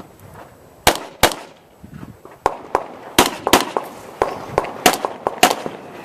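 Pistol fired rapidly in a USPSA practical shooting stage: about a dozen sharp shots beginning about a second in, many as quick pairs, with fainter pops between them.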